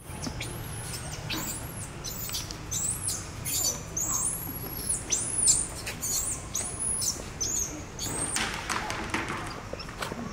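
Baby monkey giving a rapid series of shrill, high-pitched squeals, about one or two a second, each rising and then falling in pitch.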